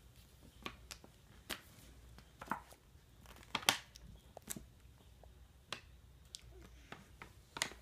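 Thin plastic water bottle crinkling and clicking as a baby handles and mouths it: irregular crackles, one every second or so, the loudest a little past halfway.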